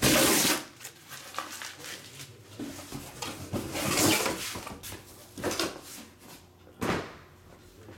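Intermittent handling noises: short rustling bursts, the loudest right at the start, and a single sharp knock about seven seconds in.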